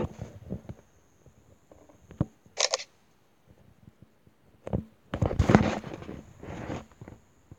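A phone being handled against bedding: scattered taps and knocks, a short camera-shutter sound about two and a half seconds in, then a louder stretch of rustling and handling noise around five to seven seconds in.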